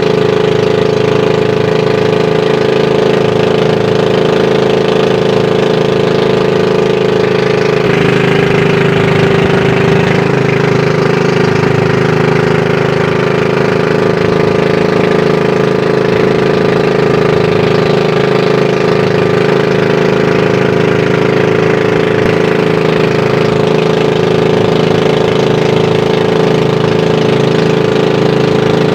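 A 16 hp Sumo boat engine running steadily while the boat is under way, its note dipping slightly about eight seconds in.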